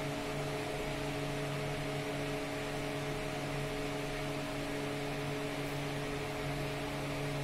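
Steady electrical hum with several fixed tones over an even hiss: room tone with no distinct events.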